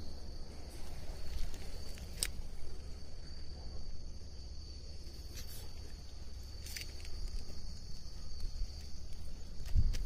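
Steady high chirring of night insects, over a low rumble and a few light clicks from a handheld phone being moved, with a louder bump near the end.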